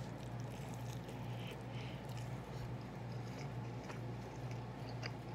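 A person chewing a mouthful of turkey burger on focaccia bread, with faint soft mouth sounds and small clicks over a steady low hum.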